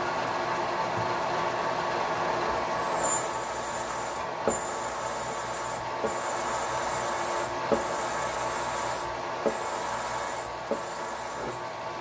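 Bridgeport milling machine's spindle running steadily while a drill bit cuts into 5/8-inch 6061 aluminum plate. A high cutting note comes in and out, and a sharp click falls about every second and a half.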